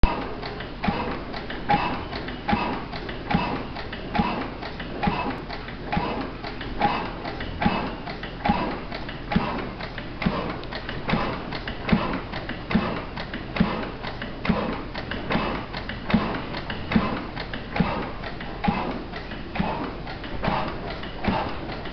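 National horizontal single-cylinder stationary gas engine running steadily, a slow even beat a little more often than once a second, with lighter ticks from the engine between the beats.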